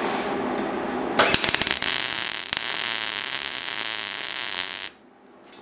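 MIG welder arc crackling steadily as a bead is laid joining a steel hinge to a steel plate, starting about a second in after a softer rushing noise and cutting off abruptly near the end.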